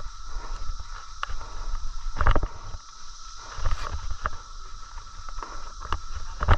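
Footsteps and rustling through dry leaves and brush, a run of irregular crunches that is loudest a little over two seconds in, over low wind-like rumble on the microphone.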